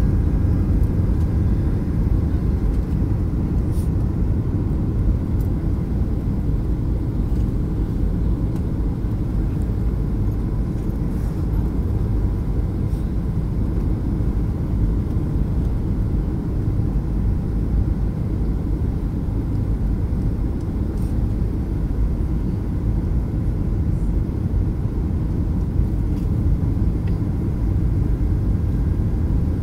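Jet airliner cabin noise on descent with flaps extended: a steady low rumble of engines and airflow, with a faint steady whine above it.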